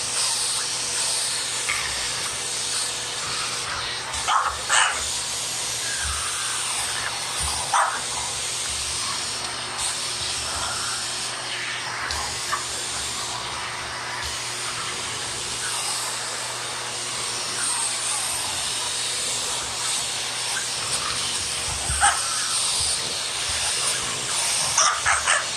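Vacuum cleaner running steadily, with a French bulldog barking at it in short bursts: a couple of barks about four seconds in, another near eight seconds, and more near the end.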